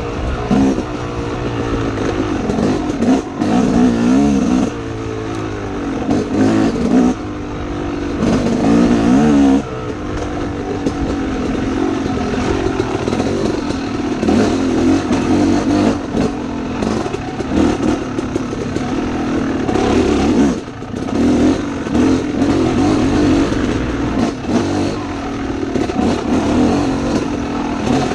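Dirt bike engine under load on a trail, its pitch climbing and falling again and again as the rider works the throttle and gears, with a brief throttle-off dip about two-thirds of the way through.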